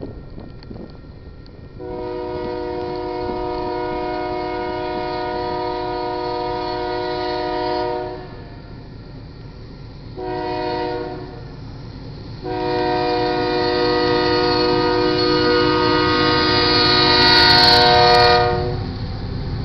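Air horn of a GE AC44CW-CTE freight locomotive sounding the grade-crossing warning as it approaches: a long blast, a short blast, then a long blast that ends as the locomotive reaches the crossing. The low rumble of the train runs underneath.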